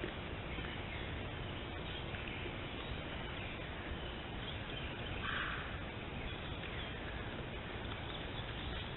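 Steady hiss of a trail camera's microphone in woodland, with faint bird calls and one short, louder call about five seconds in.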